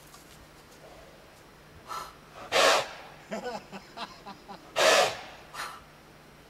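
Morgan stallion and his handler trading forceful blows of breath in play: two loud puffs about two seconds apart, with softer puffs and a short fluttering snort through the horse's nostrils between them.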